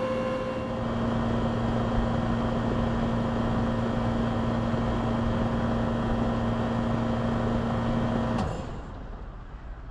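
2006 WeatherKing 3-ton central air conditioner with a Bristol reciprocating compressor running with a steady hum, then shutting down: about eight seconds in, the hum cuts off suddenly with a click, leaving a much quieter sound.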